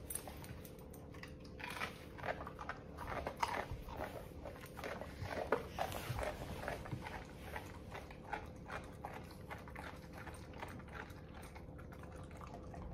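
A dog crunching and chewing a small piece of carrot, in irregular crunches that come thick at first and thin out in the second half.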